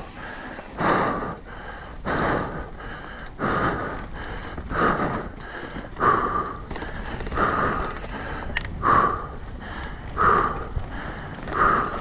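Mountain-bike rider breathing hard in a steady rhythm, about one heavy breath every second and a half.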